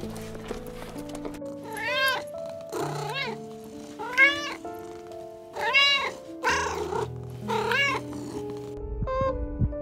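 Cat meowing: about six short meows, each rising and falling in pitch, over soft background music with held notes.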